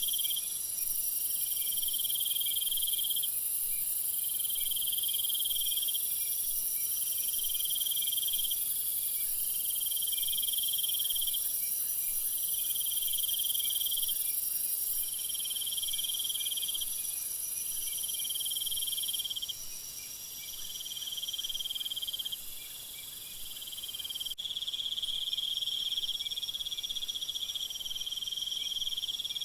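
Meadow insects such as crickets trilling. One insect repeats trills about a second and a half long, roughly every two seconds, over a steady high-pitched hiss of other insects. The background changes abruptly about three quarters of the way through.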